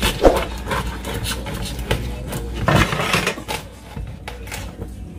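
Kitchen knife cutting a whole raw chicken in half on a wooden cutting board: irregular knocks and short rasping cuts.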